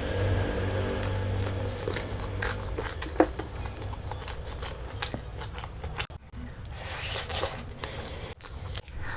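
A person biting and chewing a meal of chicken curry and rice close to the microphone, with irregular sharp clicks and crunches.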